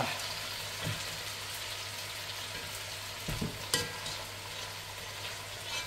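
Okra pieces being stirred with a ladle in a pot of water: soft swishing over a steady hiss, with a few light knocks of the ladle against the pot. The sharpest is a brief ringing clink about two-thirds of the way through.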